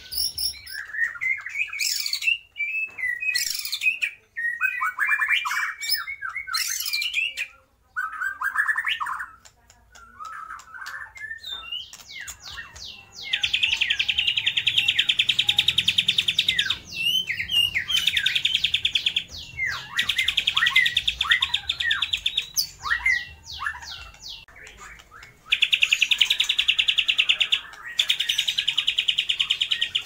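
White-rumped shama singing a varied song that the uploader says imitates lovebird, kapas tembak and mountain spiderhunter calls. Quickly changing phrases come first, then from about halfway four long, fast trills of a few seconds each, the loudest parts.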